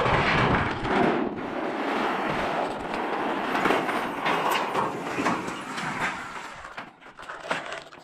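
Corrugated metal sheets rattling and clattering as a person moves across them, a loud continuous metallic clatter that thins to a few separate clanks near the end.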